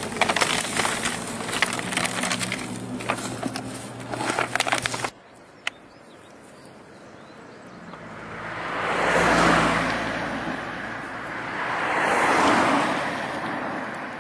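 Close crackling and rustling for about the first five seconds, then quieter street ambience in which two passing cars rise and fade one after the other, each a swell of road noise.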